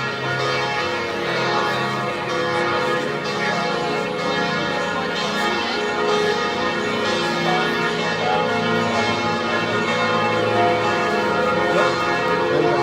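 Church bells pealing continuously, many ringing tones overlapping with no break.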